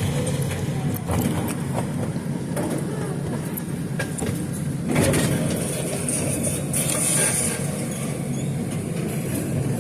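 Train running, heard from on board: a steady low rumble with a few sharp knocks about a second in and again at about five seconds, and a brief hiss about seven seconds in.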